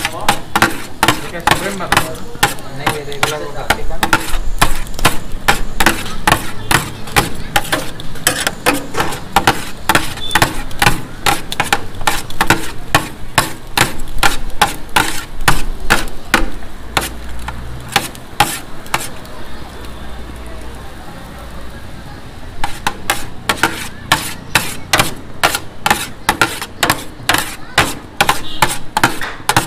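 Metal spatula rapidly chopping and scraping shawarma chicken and cabbage on a flat steel griddle: a clattering run of steel-on-steel strikes, about four a second. It pauses for a few seconds about two-thirds of the way through, then resumes faster.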